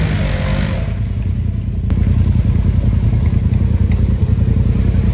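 Side-by-side UTV engine in a mud hole: a burst of revving with spraying mud dies away about a second in, leaving a steady low engine rumble at low revs, with one sharp tick near two seconds.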